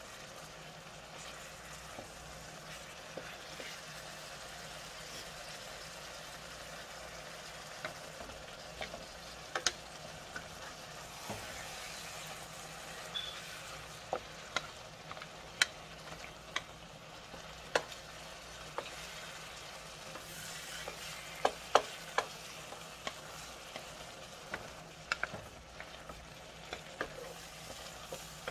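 Shrimp, sausage, peppers and onions frying with a steady sizzle in a skillet while a wooden spoon stirs them, knocking and scraping against the pan now and then, a few quick knocks close together past the middle.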